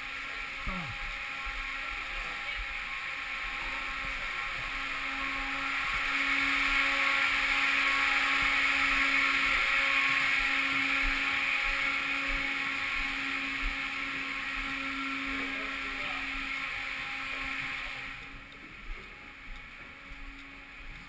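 A steady rushing hiss over a level low hum. It grows louder in the middle and drops off suddenly a few seconds before the end.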